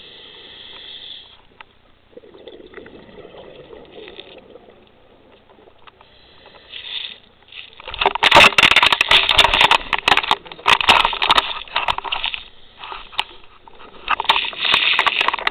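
Scuba regulator breathing heard underwater: a soft hiss in the first few seconds, then from about halfway loud crackling rushes of exhaled bubbles, with a short pause before a second rush near the end.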